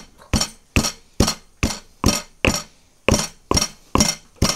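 Stone pestle pounding small onions (shallots) in a stone mortar: about ten sharp, even knocks, a little over two a second, stopping near the end.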